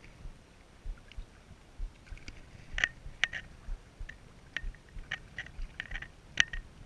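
Small waves lapping against the stones of a rocky shoreline: irregular wet ticks and small splashes, a couple of them louder, over a low rumble of wind on the microphone.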